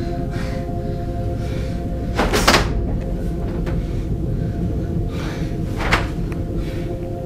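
Wooden wardrobe being handled, opened and shut: a loud half-second rush of noise about two seconds in and a shorter one about six seconds in, over a steady background music drone.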